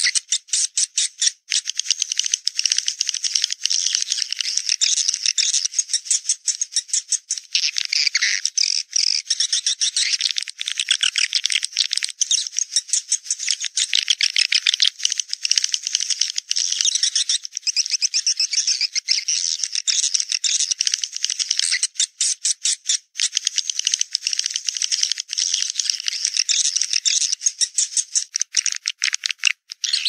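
Recorded swiftlet calls played as a lure sound: a dense, rapid, high-pitched twittering chatter, running on with a few brief breaks. It is the call used to draw swiftlets to a nesting house.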